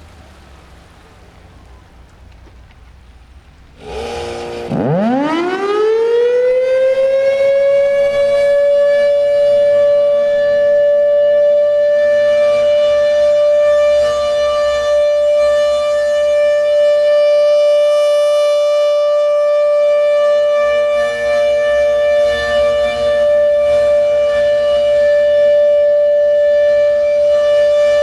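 Federal Signal Thunderbolt 1000 civil defense siren starting up: it cuts in suddenly about four seconds in, winds up with a rising pitch over about five seconds, then holds one steady, very loud tone.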